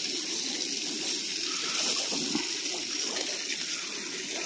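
Oil sizzling steadily in a small frying pan as breaded walleye fillets fry in it: a continuous, even hiss.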